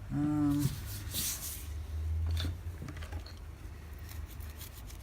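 A short hummed "mm" from a man, then a brief rustling swish and a scatter of small light clicks and taps as things are handled on a workbench, over a steady low hum.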